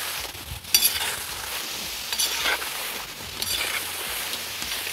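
Potato slices sizzling steadily in hot vegetable oil in a cast-iron kazan, flaring up three times as a metal spatula stirs and turns them.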